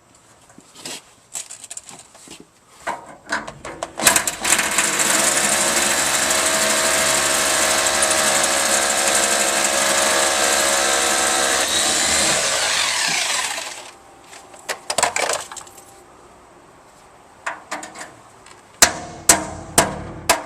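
Hammer drill boring an anchor hole into concrete, running steadily for about nine seconds before stopping. Sharp metallic clinks and knocks come before and after it.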